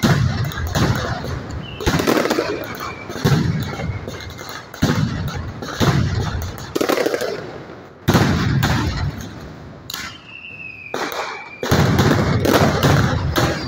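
Mascletà: strings of firecrackers going off in dense, rapid volleys, the bangs surging in a new wave every second or two, with a couple of faint falling whistles among them.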